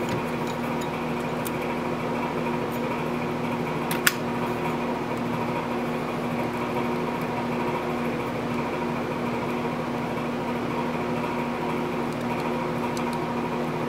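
Steady machine hum from a fan-type appliance in a small room, holding a few fixed pitches, with one sharp click about four seconds in.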